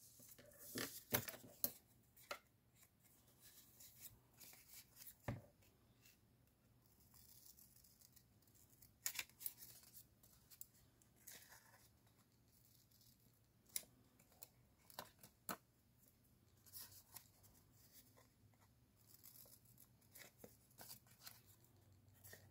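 Faint handling of paper, rustling as sheets are moved, followed by small scissors snipping through folded paper in scattered crisp cuts and clicks.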